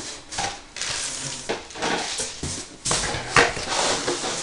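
Packaging being handled inside a cardboard box: plastic wrap and paper rustling and crinkling in irregular bursts, loudest about three and a half seconds in.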